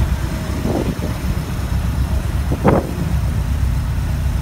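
Road noise inside a moving car: a steady low rumble from engine and tyres, with two brief knocks, one just under a second in and a louder one near the three-second mark.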